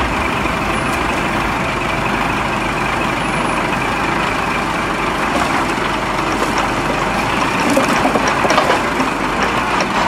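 Truck engine running steadily, powering a hydraulic log-loader crane, with a few sharp knocks of logs on logs in the second half as the grapple sets its load down.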